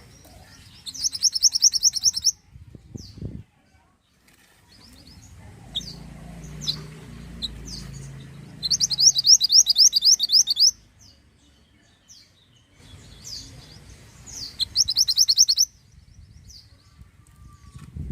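A mantenan bird singing: three loud, fast trilled phrases of about six notes a second, each lasting one to two seconds, with sharp single chirps between them.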